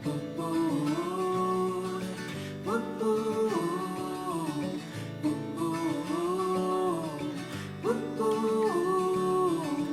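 Background song with strummed acoustic guitar and a sung vocal melody that glides up and falls back every couple of seconds.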